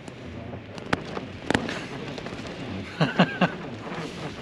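Wind buffeting a tent, the tent fabric snapping with sharp cracks about a second in, again half a second later, and several in quick succession around three seconds in, as a gust picks up again after a lull.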